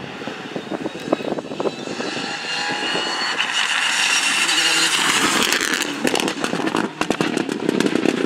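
Citroën DS3 rally car engine accelerating hard toward and past the listener, its pitch climbing for a few seconds. It then breaks into a rapid series of sharp exhaust pops and cracks as the car lifts off and slows.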